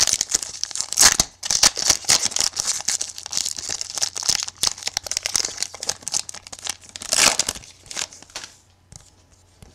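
The crinkly foil wrapper of a football card pack being torn open and handled while the cards are slid out, a dense crackling and rustling that dies down about eight and a half seconds in.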